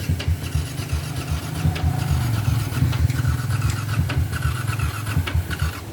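Yamaha MX King single-cylinder engine, bored out to 180 cc, idling with uneven pulses through its newly fitted exhaust while its CO mixture is being set so that it stops sputtering. It runs a little louder from about two seconds in.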